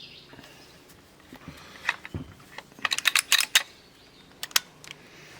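Sharp clicks and knocks of hands handling a chainsaw after fuelling, with a quick run of clicks in the middle and a couple more near the end.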